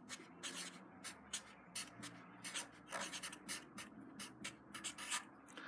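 Sharpie felt-tip marker writing on paper: a quick run of short strokes, about three a second, as a word is written letter by letter.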